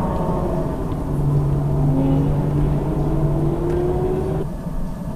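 Car engine running under light throttle, its note rising slowly for a few seconds, then dropping off suddenly about four seconds in as the driver lifts.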